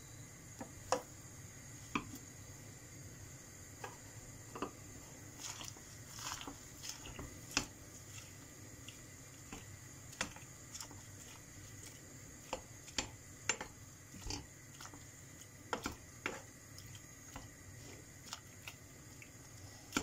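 Wooden spoon stirring leafy greens as they wilt in a stainless steel pot: irregular sharp knocks and clicks of the spoon against the pot, with wet squishing of the leaves.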